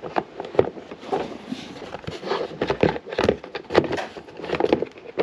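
Plastic battery box lid being pushed shut and its strap latch fastened, giving a string of irregular plastic clicks and knocks.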